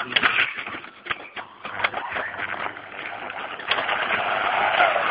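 Toy slot car running along its plastic track with a phone camera riding on it: a small electric motor whirring, with rattling clicks and knocks. It gets louder and busier over the last second and a half.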